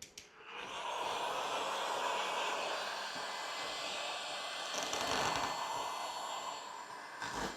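Electric hot-air blower switched on with a click, then running steadily as it heats an old sticker on a dirt bike's plastic rear guard to soften the adhesive for peeling. It cuts off near the end.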